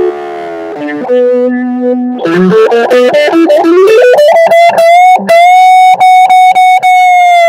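Electric guitar played through a small 5-watt tube-style amp with distortion. A run of notes climbs in pitch, then one high note is held and re-picked over the last couple of seconds.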